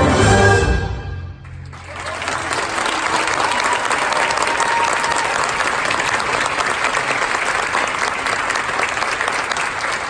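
A concert band's last chord, with bells and mallet percussion ringing, dies away in the first second and a half; then the audience breaks into steady applause.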